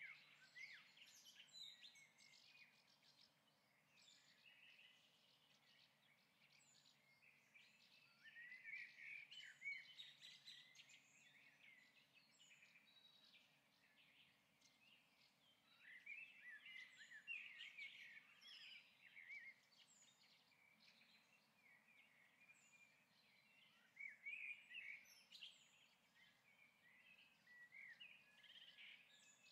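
Near silence with faint bird chirping and song, coming in bursts every several seconds.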